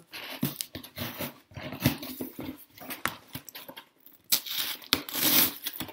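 Packing tape being peeled and torn off a cardboard box by hand, with the cardboard flaps rubbing and scraping: a run of scratchy tearing noises and sharp clicks. The longest, loudest tear comes a little after four seconds in.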